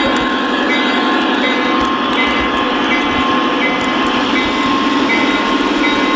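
Three-rail O-gauge model train running along the track, heard from on board: a steady running noise of its motor and wheels on the rails. Short high tones repeat about every three-quarters of a second.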